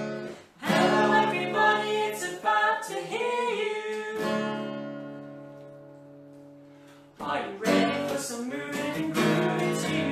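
Acoustic guitar strummed with voices singing a children's song. About halfway, a chord is left ringing and fades for a few seconds, then the strumming and singing start again.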